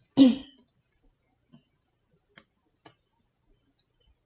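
A brief voiced sound at the very start, then near silence broken by three faint, short clicks.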